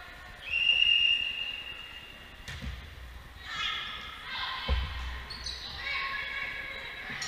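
Referee's whistle blown in one long, steady blast to start the point. Then two sharp smacks of the volleyball being struck, about two and four and a half seconds in, and players' voices calling out, all echoing in a large gym.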